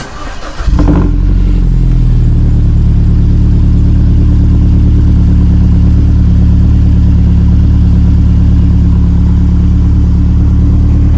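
BMW 120i's 2-litre four-cylinder petrol engine cranking briefly on a cold start and catching under a second in with a loud flare. It then settles into a steady, deep idle through a backbox-deleted custom quad exhaust.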